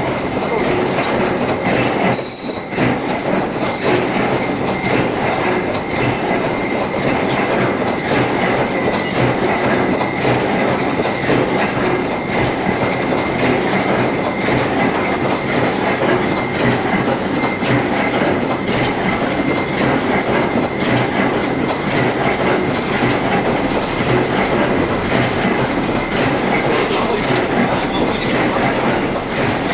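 Continuous factory machinery noise: dense rapid clatter over a rumble, with a faint steady high whine and a brief dip about two and a half seconds in.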